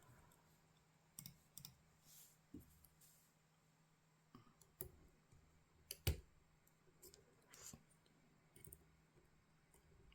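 Faint, scattered small clicks of picking tools working the pins of a GLK dimple lock, irregularly spaced, with the loudest click about six seconds in.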